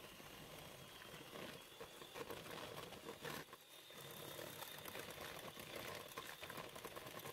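Bluesky electric hand mixer running faintly, its beaters churning creamed butter and sugar in the bowl. The sound dips briefly about three and a half seconds in, then carries on steadily.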